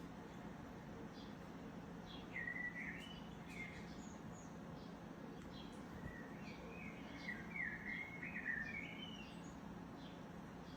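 Faint bird chirps over a steady low background hum, coming in two short runs: one about two seconds in, and a longer one in the second half.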